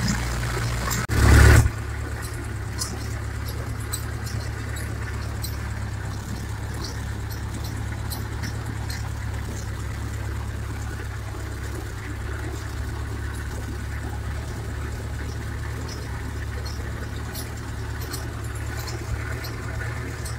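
YuMZ tractor's diesel engine running steadily while the tractor drives along, heard from inside the cab as a constant low drone. A brief loud burst of noise comes about a second in.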